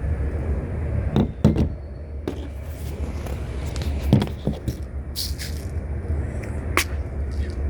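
Glock 19 CO2 BB pistol being fired: several short, sharp pops at uneven intervals, the sharpest near the end, over a steady low rumble.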